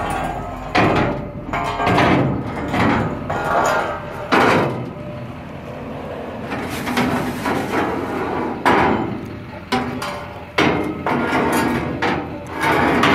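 A series of loud knocks and bangs, about a dozen, at irregular intervals, with some ringing after each.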